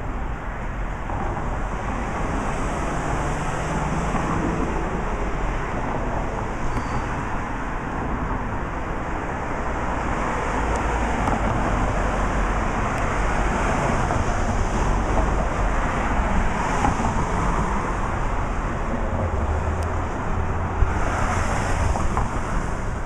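Street traffic: a steady wash of passing cars' tyre and engine noise, swelling near the end as a car goes by close.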